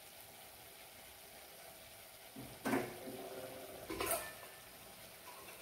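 Spice gravy softly sizzling in a steel kadai, with two ringing clanks of steel utensils against the pan about two and a half and four seconds in.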